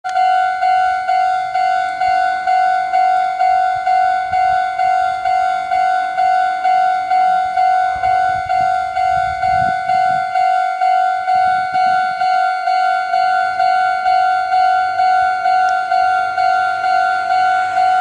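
Electronic alarm bell of a Japanese railway level crossing, ringing from the loudspeaker on the crossing signal. It rings a steady ding-ding-ding of about two and a half strikes a second, each a single fading tone, warning that a train is approaching and the crossing is closed. A brief low rumble passes underneath around the middle.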